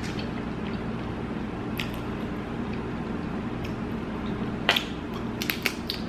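Snow crab legs being cracked and picked apart by hand: scattered sharp shell clicks and wet squishes, a louder crack near five seconds in and a quick cluster of clicks just before the end, over a steady low hum.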